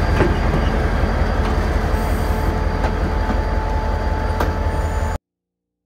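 Diesel-electric locomotive idling with a steady deep rumble and a faint steady hum above it, cutting off abruptly about five seconds in.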